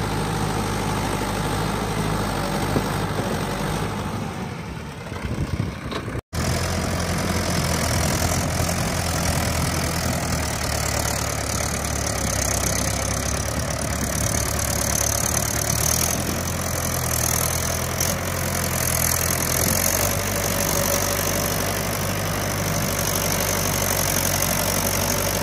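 Mahindra 585 DI tractor's four-cylinder diesel engine running steadily while it pulls a blade implement through loose sandy soil. The sound dips and cuts out for a moment about six seconds in, then carries on as before.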